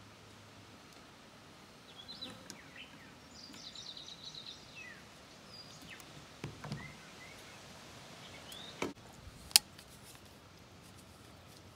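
Small birds chirping and twittering. A dull knock comes about six and a half seconds in, then two sharp clicks near the end; the second is the loudest sound, as a metal paint can and its lid are handled and set down.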